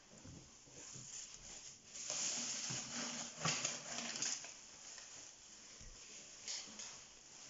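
Fingers handling a tiny plastic toy accessory close to the microphone: soft clicks and rustling. It grows louder for a couple of seconds in the middle, with a sharper click about three and a half seconds in.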